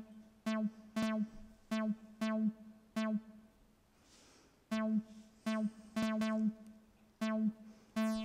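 Synthstrom Deluge playing a looped sequence of short synth notes, all on one pitch, about two a second. About three seconds in, a gap of roughly a second and a half follows where steps set to play only part of the time by per-note probability drop out.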